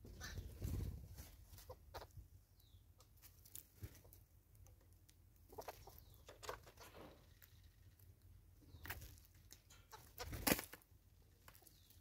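Birds feeding at a pile of seed on a wooden stump: scattered short pecking taps and clucking sounds, with one louder thump about ten and a half seconds in.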